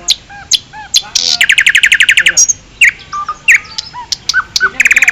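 Songbird singing close to the microphone: a string of short, sharp chirps and whistled slurs, broken about a second in and again near the end by a fast, even trill lasting about a second.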